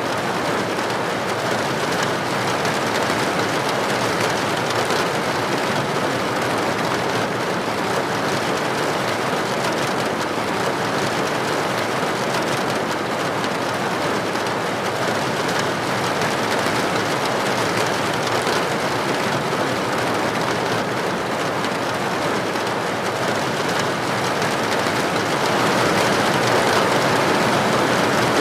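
Steady heavy rain falling on a hard surface such as a roof or window: a dense, even patter with no let-up, swelling slightly louder near the end.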